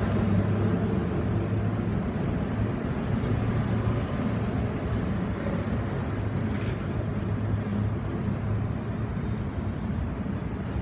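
City street traffic: cars passing through an intersection, a steady low rumble of engines and tyres.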